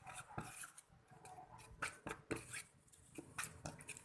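Handling noises: a few irregular sharp clicks with soft rustling and scraping between them.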